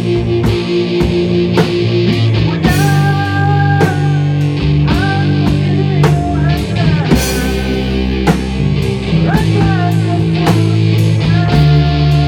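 Live rock band playing loud, with electric bass, drums and guitar: sustained low bass notes under a steady drum beat. From about three seconds in, a higher melody line with pitch bends comes in over it.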